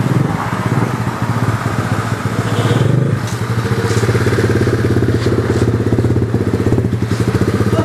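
Small pit bike's engine running as it is ridden at low speed, revving up about two to three seconds in, then dropping back to a steady low run.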